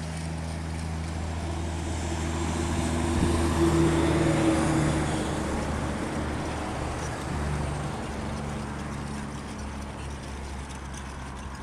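A motor vehicle's engine running with a steady low hum, swelling louder a few seconds in and fading again, as of a vehicle passing on the road.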